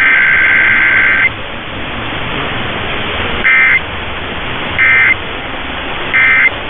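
Emergency Alert System SAME digital data bursts, a buzzing two-tone warble, over steady radio hiss. A long header burst ends about a second in, then three short end-of-message bursts follow about 1.3 s apart.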